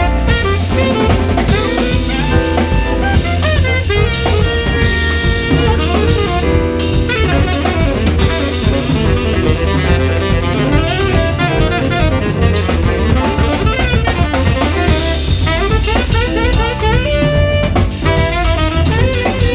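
Live jazz quartet playing: a tenor saxophone line over drum kit, with acoustic bass and piano in the band.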